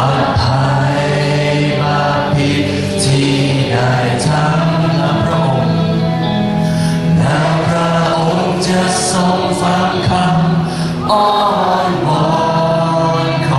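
A slow worship song sung by many voices together, backed by a live band with drum kit and cymbals.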